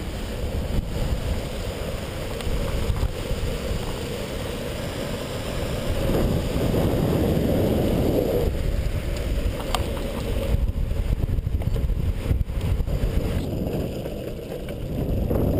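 Longboard wheels rolling over asphalt with wind buffeting the camera microphone: a steady rumble and hiss that grows louder for a couple of seconds in the middle, with a few sharp clicks.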